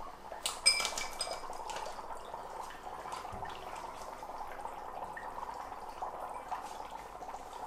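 Dry ice dropped into two glass tumblers of hot water: a few sharp clinks of the pieces against the glass in the first second or so, then steady bubbling as the dry ice sublimes.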